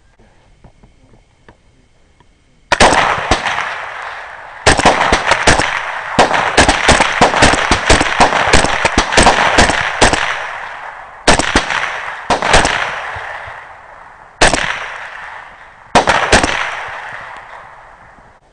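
Rifle fire. A single shot about three seconds in, then a rapid string of many shots for about five seconds, followed by a handful of spaced shots, each one with a trailing echo.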